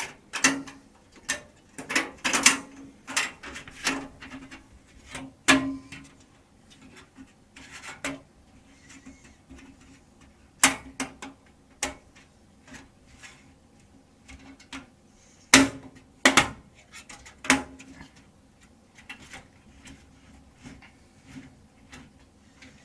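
Thin sheet-metal I/O shield being pressed and snapped into the rear cutout of a steel PC case: irregular sharp clicks and taps, some with a short metallic ring, in clusters near the start, around the middle and again later.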